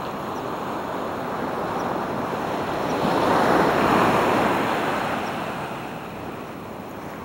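Ocean surf on the beach: a wave breaks and washes in, swelling to its loudest about halfway through and then fading back, with some wind on the microphone.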